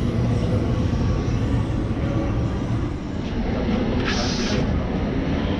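Metro train rumbling as it pulls away from an underground platform, with a short hiss about four seconds in.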